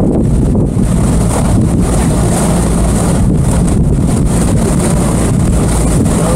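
Towboat's engine running steadily at low speed, a constant low drone, with wind buffeting the microphone.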